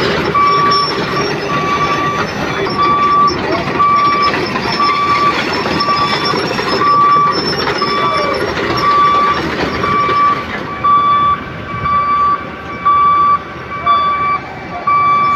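Excavator's warning alarm beeping steadily, about two beeps a second, over the running engine and machinery noise, which drops off about ten seconds in while the beeping carries on.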